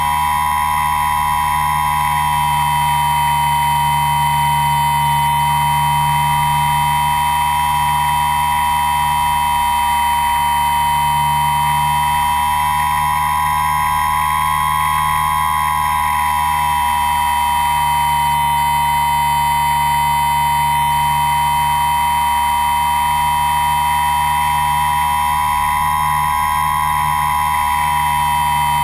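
Electric motors and propellers of an RC aircraft heard from the camera on board: a steady, high-pitched whine that swells and wavers slightly in pitch.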